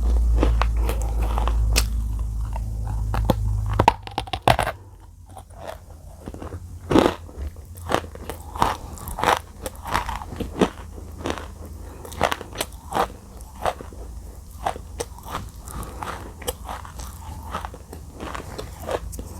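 Close-miked biting and chewing of dry edible clay (Nakumatt clay), with irregular crisp crunches about once or twice a second. A low steady hum underlies the first four seconds and then cuts off.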